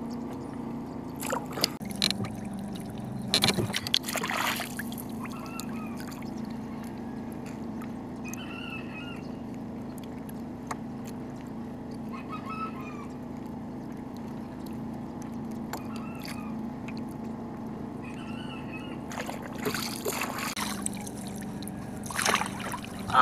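Splashing near the end as a needlefish is hauled out of the water on a handline, after a few brief splashes and rustles earlier on. A steady low hum and a faint short call repeating every few seconds run underneath.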